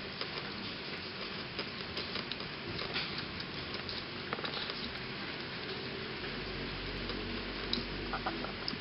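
Soft, irregular small clicks and taps from kittens at a cardboard box and a feeding bottle, over a steady hiss.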